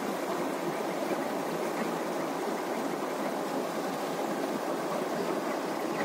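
Small river cascade: white water pouring over a rock ledge and boulders in a steady, even rush.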